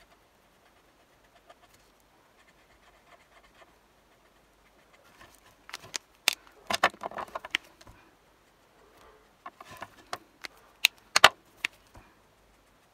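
Ohuhu alcohol marker caps and barrels clicking and knocking on the desk as markers are capped, set down and picked up, in two short clusters, the first about halfway through and the second near the end.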